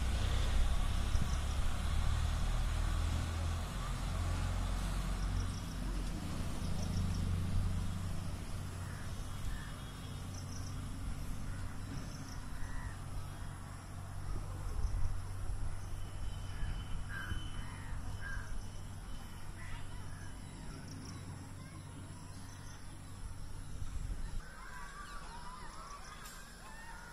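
Outdoor ambience: a steady low rumble, typical of wind on a phone microphone, with birds calling now and then. The rumble drops away near the end, where a cluster of calls is the loudest.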